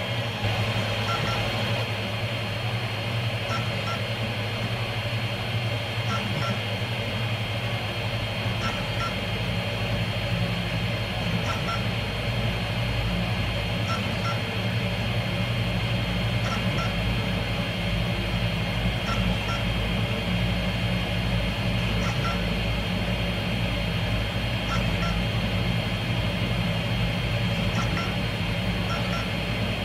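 TEVO Tornado 3D printer running a print: a steady hum and whine from its motors and cooling fans, with pairs of short ticks repeating every two to three seconds.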